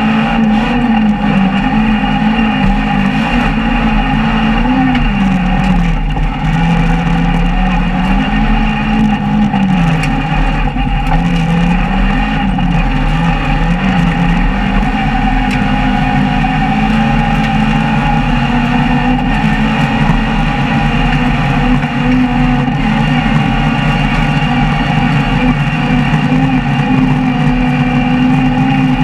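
Opel Astra GSi rally car's four-cylinder engine heard from inside the cabin, driven hard with its revs rising and falling repeatedly, over the steady rumble of tyres on gravel.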